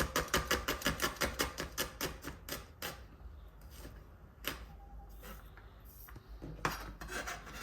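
Knife chopping green chillies on a cutting board: quick, even strokes at about six a second for the first three seconds, then a few single knocks.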